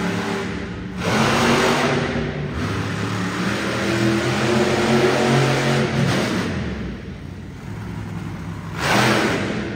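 Monster truck engine revving hard in bursts: a loud blast about a second in and another near the end, with the engine note climbing and falling in between.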